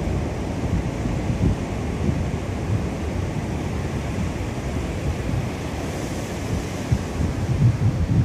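Wind buffeting the microphone on an open beach: a low rumbling noise that comes and goes in gusts, strongest near the end, with the sound of surf under it.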